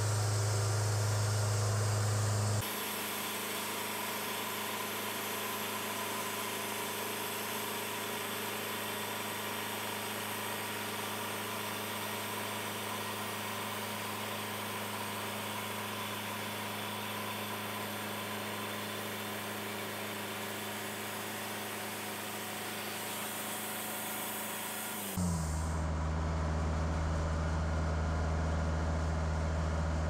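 Wood-Mizer portable band sawmill running steadily, its engine and band blade sawing through a cherry log. The sound changes abruptly about two and a half seconds in and again near the end, with a strong low hum in the first and last parts and a hissier mix between.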